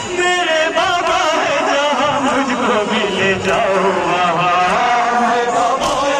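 A man singing a noha (a Shia mourning lament) into a microphone, amplified, in a long wavering melodic line that runs unbroken.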